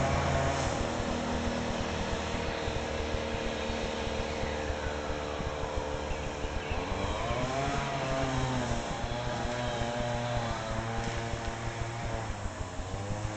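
Mini bike's small engine running steadily, with its pitch swinging up and back down about seven seconds in.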